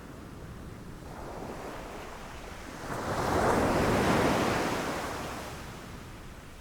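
Ocean waves on a shore: one wave builds about three seconds in, crashes and rushes up, then washes back and fades. Wind noise on the microphone sits under it.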